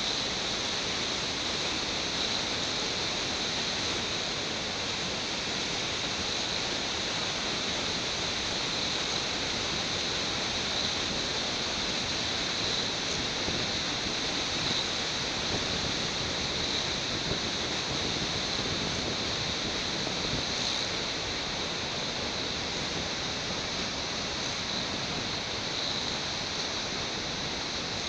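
Steady, even rushing noise with no distinct events or voices.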